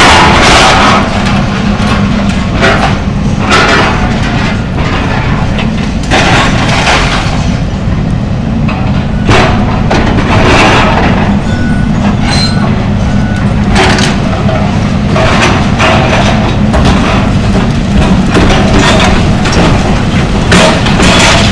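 Diesel engine of a John Deere demolition excavator running steadily under load, with repeated crashes and crunches of breaking building material and falling debris, about one every one to two seconds. The recording is loud and partly distorted.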